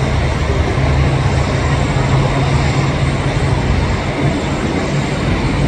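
Steady jet engine noise from an airliner taxiing on the ground, an even rushing sound with a low hum underneath.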